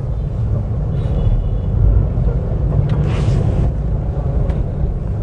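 Steady low road and engine rumble inside a moving car's cabin, with a brief rush of noise about three seconds in.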